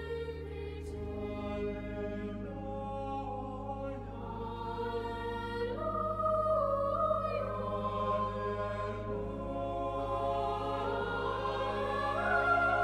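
Choral music: a choir singing slow, held chords over a steady low bass note, growing a little louder near the end.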